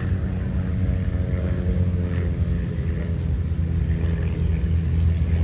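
Small aircraft tow tug's engine running steadily as it pulls a parked P-51 Mustang down the taxiway: a low rumble with a hum that drops slightly in pitch over the first few seconds.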